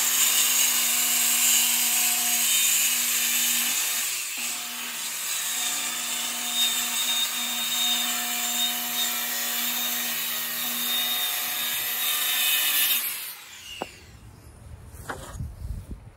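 An electric power saw cuts through plywood, running steadily with a constant motor hum. About thirteen seconds in it shuts off and winds down with a falling whine, followed by a few faint knocks.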